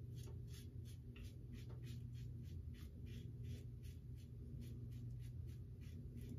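Muhle R41 open-comb double-edge safety razor scraping through about a month's stubble on the chin and neck in faint, quick short strokes, about four a second.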